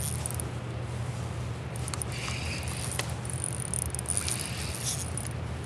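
Fishing reel buzzing in two short spells during the fight with a big smallmouth bass, about two seconds in and again around four seconds, as line is given or taken. Underneath is a steady low rumble.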